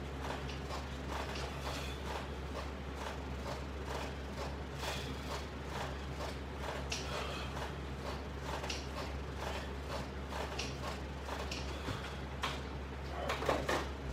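Light, irregular clicks and knocks from resistance-band workout hardware being worked through pull-down crunch repetitions, over a steady low hum. A somewhat louder knock comes near the end.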